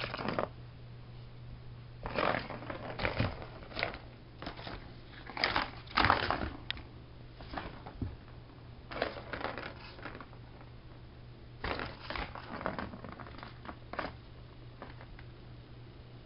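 A cat playing with a Turbo Track toy: irregular bursts of clattering and scraping, in clusters a second or two long every few seconds.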